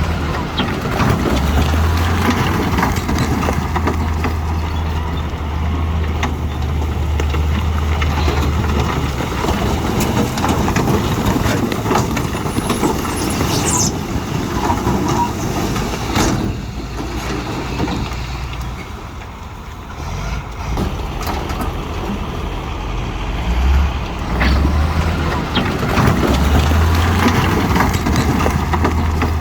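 Heavy diesel earthmoving machinery running under load, a steady low engine drone with clanking mechanical noise. There is a brief high squeal about fourteen seconds in, and the engine sound eases for a moment past the middle before building again.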